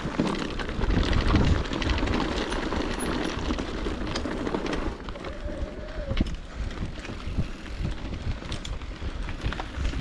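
Electric mountain bike riding over rough, rocky trail: tyres rolling over rock and dirt with a low rumble, the bike rattling and knocking. The rumble and rattle are busier in the first half and ease off after about five seconds.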